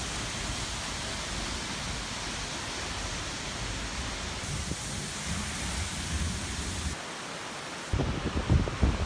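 Steady rushing of water from a large waterfall, the level shifting slightly at each change of clip. Near the end, wind buffets the microphone in uneven low gusts over the water noise.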